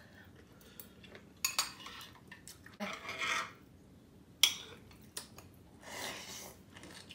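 Metal spoon and chopsticks clinking against bowls and a griddle pan while eating noodles, with a sharp clink about four and a half seconds in and a noodle slurp near the end.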